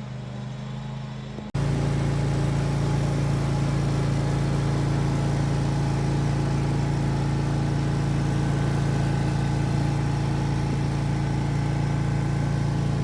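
An engine running steadily at a constant speed, without revving. It cuts in abruptly about a second and a half in.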